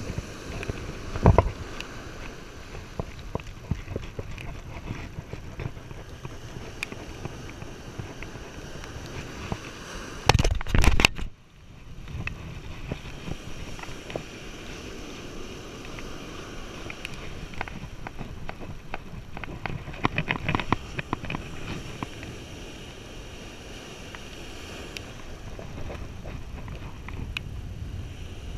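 Scraping and knocking of a camera being handled close to the microphone, over a steady rushing background. A loud burst of rustling and knocks comes about ten seconds in, then cuts off abruptly.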